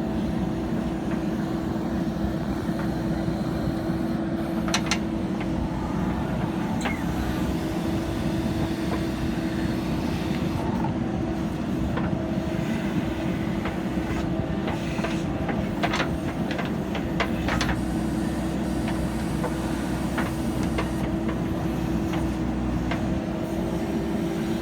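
JCB backhoe loader's diesel engine running steadily, with scattered sharp knocks and clanks, several close together in the middle.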